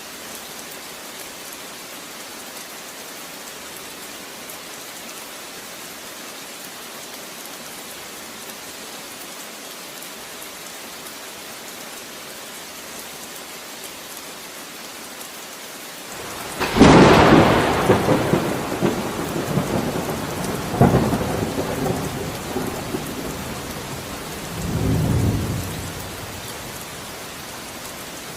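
Steady rain falling, then a little past halfway a sudden loud clap of thunder that rolls on for about ten seconds, with a second swell a few seconds later and a deep low rumble near the end before it dies back to the rain.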